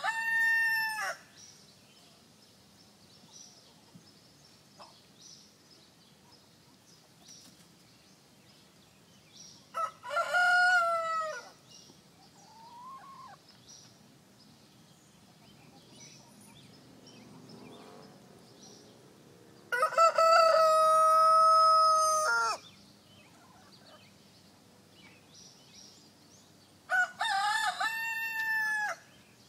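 Rhode Island Red rooster crowing, the tail end of one crow at the start and then three more about ten, twenty and twenty-seven seconds in, the one around twenty seconds the longest and loudest, close to three seconds long. Between crows there is a short rising call and faint chirps.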